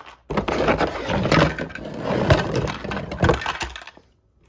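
Plastic toy track pieces and packaging being handled and pulled from a box, with a run of clattering and scraping that stops about four seconds in.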